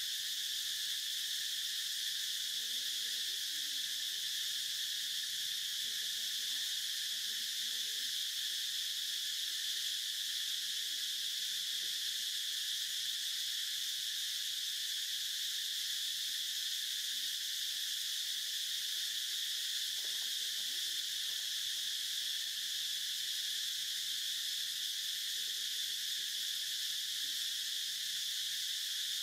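Steady chorus of insects, a continuous high-pitched drone that keeps an even level throughout.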